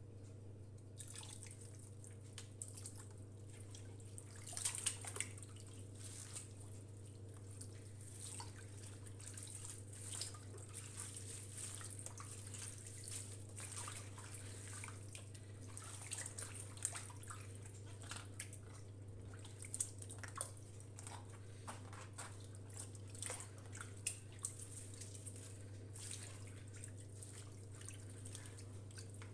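Water splashing and dripping as hands swish broccoli leaves around in a sink basin of water: irregular small splashes throughout, over a steady low hum.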